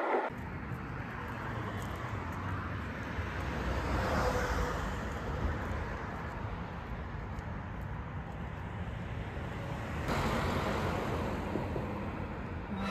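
Road traffic: a steady rush of vehicles going by, with cars swelling past about four seconds in and again from about ten seconds.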